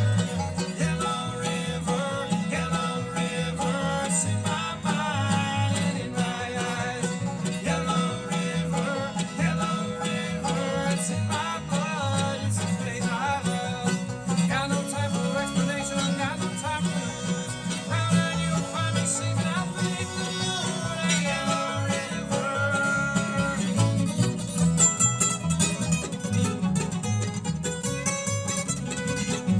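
Bluegrass band playing live: banjo and guitar picking over a steady low bass beat.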